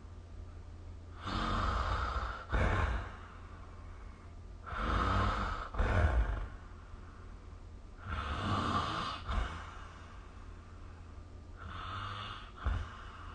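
A sleeping person snoring: four snoring breaths about three and a half seconds apart, each followed by a short, louder puff of breath. The last breath is weaker.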